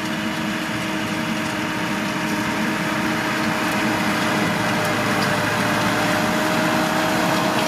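New Holland T6.145 tractor's four-cylinder diesel engine running steadily under load while pulling a seed drill through tilled soil, with a steady whine through the noise. It grows a little louder as the tractor passes close by.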